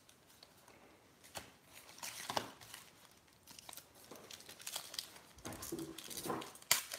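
Foil wrappers of sealed baseball card packs crinkling and rustling as they are handled and a pack is worked open, in short scattered crackles with a sharper one near the end.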